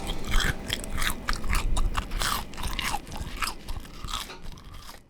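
Someone biting into and chewing crisp fried garlic potato rings, with many irregular crunches that grow fainter toward the end.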